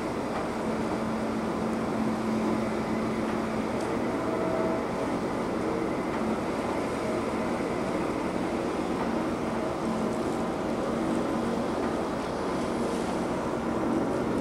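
Large car ferry's diesel engines running with a steady low hum while it sets off from the quay, over a constant background wash of noise.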